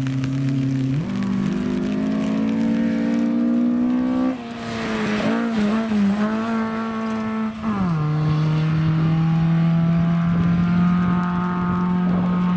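Historic rally car's engine revving hard on a gravel stage: the revs climb for several seconds, waver with a rush of gravel noise as the car goes through the corner, then drop after a gear change and hold a steady high note as it drives away.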